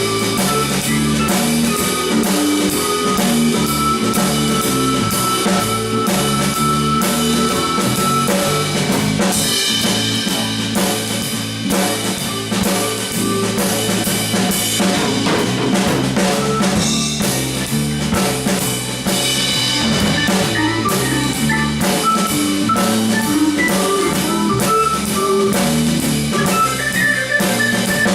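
Live instrumental band jam: a drum kit keeps a steady beat under bass guitar and Hammond organ, with no singing.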